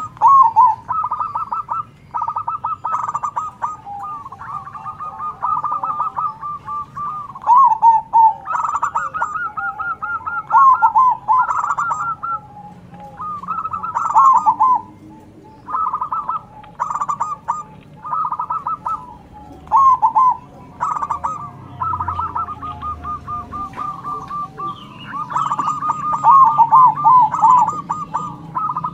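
Zebra doves (perkutut) singing, several birds answering one another with repeated, overlapping trilled cooing phrases, with faint high chirps in between.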